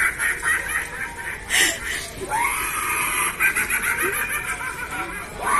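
Animatronic Halloween clown prop cackling through its built-in speaker in a rapid, high, stuttering laugh, with a short noisy burst about one and a half seconds in.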